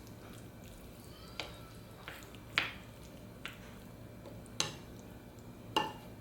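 Light kitchen clatter: about six short clinks and knocks of utensils or dishes, spread unevenly, a few with a brief ring.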